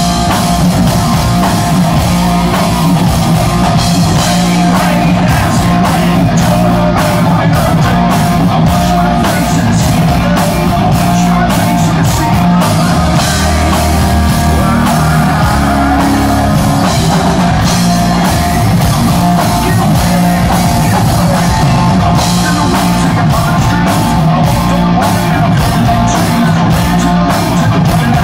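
Hard rock band playing live: electric guitars, bass guitar and a drum kit with frequent cymbal hits, with the lead singer singing over it.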